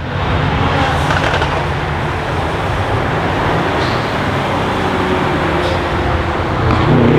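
A car driving by: an engine note under a steady rush of tyre and road noise. The engine grows louder near the end.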